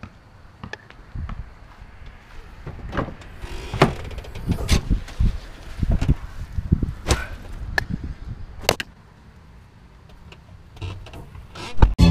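Handling noise from a backpack or bag being lifted and moved: irregular knocks, clicks and rustles of fabric and gear over a low rumble, busiest in the middle.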